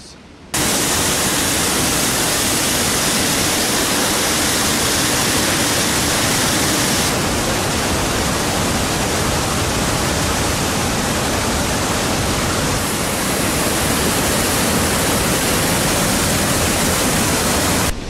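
A waterfall and the muddy stream below it, in flood after heavy rain: a loud, steady rush of water. It starts abruptly about half a second in and shifts slightly in tone twice.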